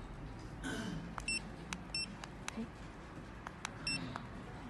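Tera 1100 handheld barcode scanner giving three short, high beeps, each one the sign of a successful read as the setting and test barcodes are scanned, with light clicks in between.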